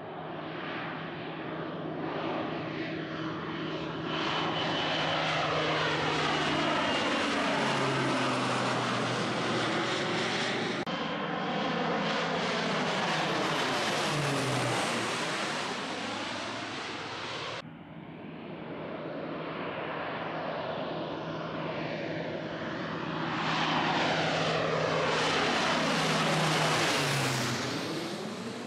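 Single-engine crop-dusting plane flying low while sowing seed, passing overhead three times. Its engine and propeller drone swells as it approaches, then drops in pitch as it goes by.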